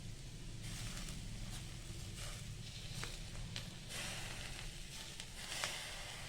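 Hissing from food frying in a pan, coming and going in short spurts, with a few sharp clicks of a utensil against the pan.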